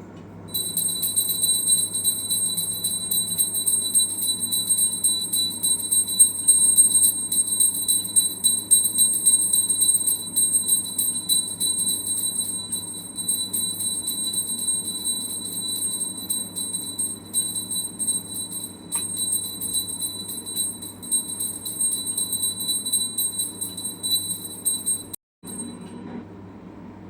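Air fryer's end-of-timer bell ringing as the dial timer reaches zero: a loud, continuous high-pitched rapid ringing that cuts off near the end, over the steady low hum of the air fryer's fan.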